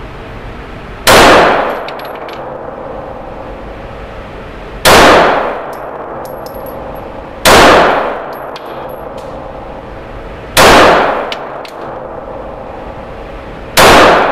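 Glock 19 9mm pistol fired five times in slow, deliberate fire, roughly three seconds apart. Each shot echoes off the walls of an indoor range and is followed by a few faint high clinks.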